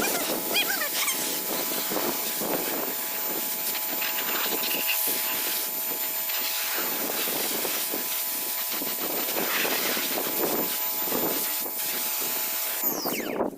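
Water spraying hard onto a concrete mixer as it is washed, a steady hiss with a faint steady whine beneath it, cutting off suddenly just before the end.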